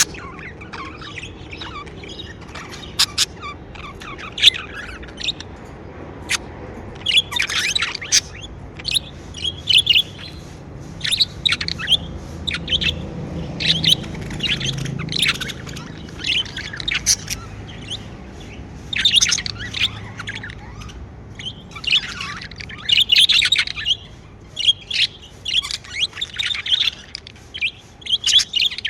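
Budgerigars chirping and chattering, a flurry of short, quick chirps that come in bursts with brief gaps between them.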